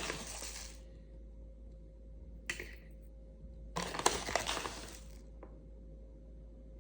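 Ground coffee being poured into an empty aluminium Nespresso Vertuo pod: a gritty pour that trails off in the first second, a short scrape about two and a half seconds in, then a longer gritty pour, ending with a small click.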